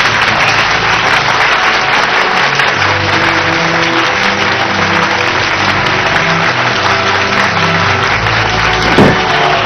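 Crowd applauding steadily over background music with sustained low notes. About nine seconds in comes a single loud strike.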